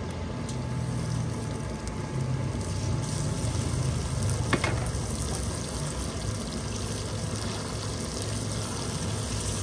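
Raw chicken pieces frying in hot oil in a karahi: a steady sizzle that grows louder about three seconds in as the pieces are stirred with a spatula. There is a low steady rumble underneath and a single sharp tap about halfway.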